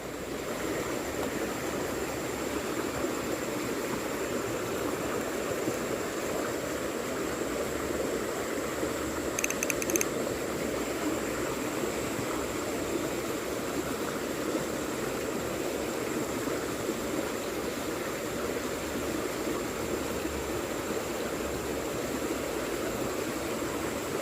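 Small stream's water running steadily, with a thin, high steady whine over it and a short burst of high chirps about ten seconds in.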